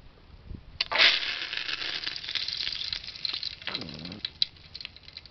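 Fresh curry leaves dropped into hot oil, sizzling and spattering loudly from about a second in, then dying down to scattered crackles.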